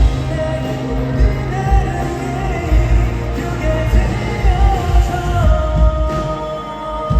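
Live pop ballad played by a band with a steady drum beat, under a voice holding a long, bending melodic line.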